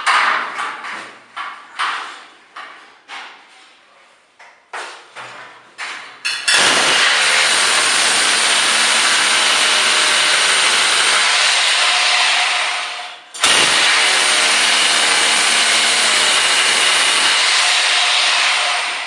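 Corded hammer drill drilling overhead into the ceiling, in two long runs with a short break about 13 seconds in. Before the drilling starts there is a string of sharp knocks and clatter.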